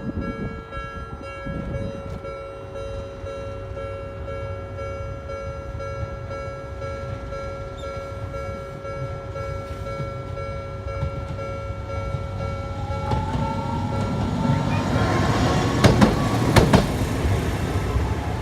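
Japanese railroad crossing warning bell ringing steadily while a train approaches. From about two-thirds of the way in, the train's running noise builds with a rising whine, then the train passes with sharp wheel clacks over the rail joints, the loudest part.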